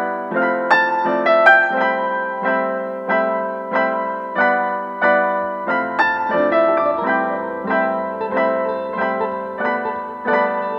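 Background piano music, single notes struck at an even pace of roughly one every half second or so, with deeper bass notes joining about six seconds in.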